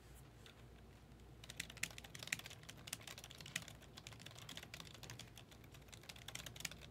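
Faint, fast typing on a computer keyboard: a quick run of key clicks starting about a second and a half in and going on until near the end.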